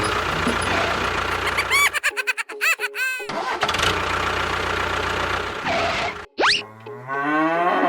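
Engine noise that cuts off about two seconds in, then choppy bursts with short warbling pitch glides, and near the end an engine revving up, its pitch rising steadily.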